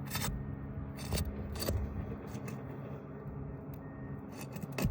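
Sharp pry bar scraping and clicking against asphalt roof shingles as it works to break their sealant strips, a few short knocks and scrapes with the sharpest near the end. A steady low hum runs underneath.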